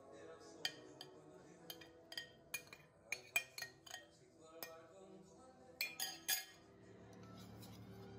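A spoon clinking against a glass bowl in a dozen or so irregular light taps, with a quick run of three about six seconds in. Soft background music plays underneath.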